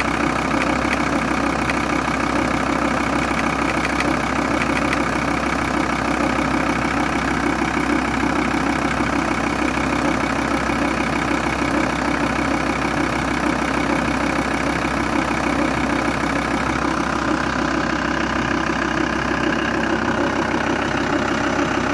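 VW T4 2.5 TDI inline five-cylinder diesel engine idling steadily with a rapid ticking in its sound, the noise the owner puts down to a defective vacuum pump.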